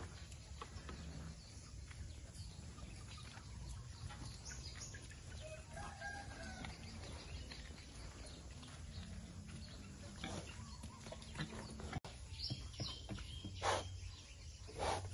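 Chickens clucking in a farmyard, with a short pitched call about six seconds in. Two louder short noisy bursts come near the end.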